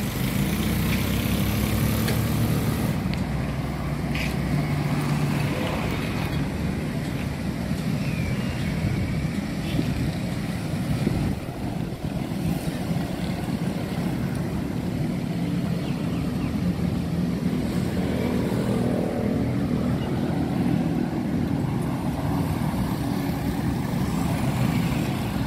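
City street traffic: car and motorcycle engines running and passing as a steady low rumble, with a motorcycle going by close near the end.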